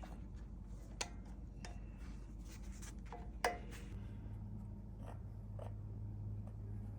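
Light metallic clicks and taps as a brake pad spring is worked into place by hand, with a sharp click about a second in and the loudest about three and a half seconds in. A low steady hum joins about four seconds in.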